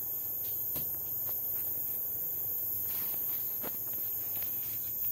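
Crickets chirring steadily in a high, unbroken night chorus, with a few scattered light knocks and scrapes from hands working in a concrete pit.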